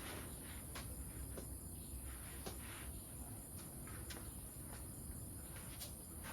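Crickets chirring at night in a steady high-pitched chorus, with a few faint clicks scattered through it.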